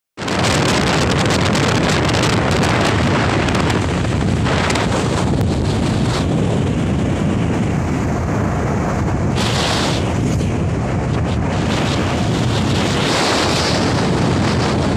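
Steady, loud wind noise buffeting the microphone of a moving motorcycle, drowning out the engine and road.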